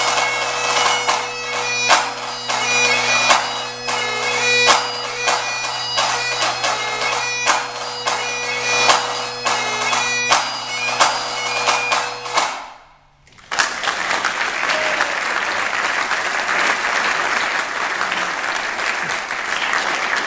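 Great Highland bagpipe playing a tune over steady drones, then the pipes cut off abruptly about two-thirds of the way through. After a brief pause an audience applauds.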